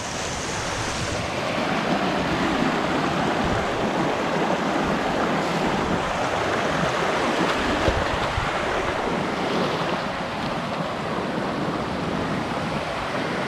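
Creek water rushing steadily over rocks, a loud even wash of sound.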